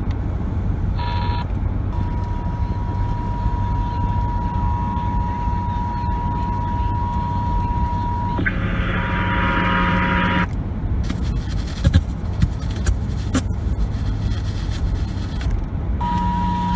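Emergency Alert System attention tone playing over the radio as a steady high tone over a low steady rumble. About eight seconds in it gives way to a harsher buzz for two seconds, then to hiss and clicks as the radio changes stations, and the steady tone comes back near the end.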